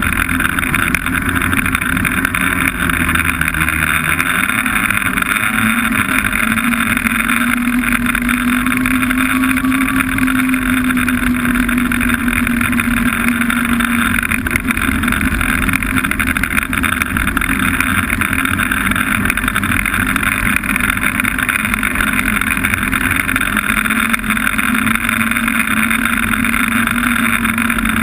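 Snowmobile engine running steadily under way, with constant track and wind noise. The engine note rises a little about four seconds in and eases off again later.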